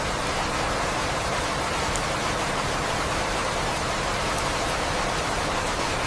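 Steady rain, an even hiss.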